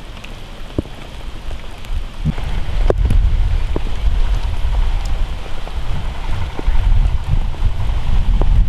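Wind buffeting the microphone as a gusty low rumble that grows louder a couple of seconds in, with scattered sharp clicks and crackles over it.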